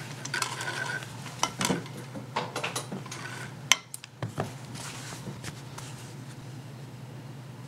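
Small metal parts of a Singer 221 Featherweight sewing machine clicking and clinking as they are handled, a rapid run of sharp clicks that thins out after about four and a half seconds, over a steady low hum.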